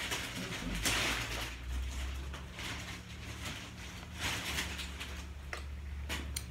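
Plastic grocery packaging rustling in irregular bursts as items are handled, with a few short knocks near the end.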